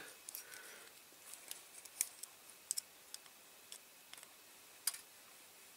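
Faint, irregular clicks and taps of small tools and metal parts being handled on a diecast model car as its pinched axle ends are worked open.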